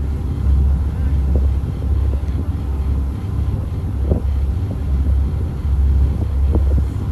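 Catamaran ferry's engines running under way, a loud, steady low drone heard from inside the passenger cabin.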